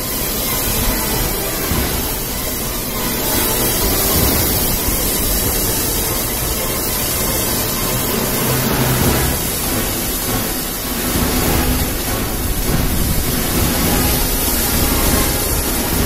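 Storm-force gale wind and heavy breaking surf: a loud, steady rushing noise that swells a little now and then.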